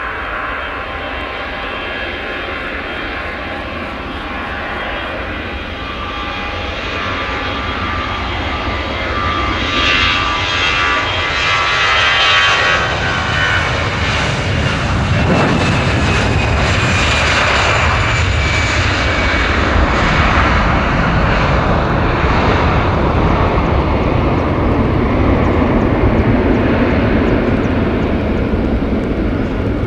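Airbus A321-211's twin CFM56 turbofan engines at takeoff thrust. A whine over a broad roar grows louder for about twelve seconds as the jet accelerates, then the whine slides down in pitch while a deep, steady roar carries on as it climbs away.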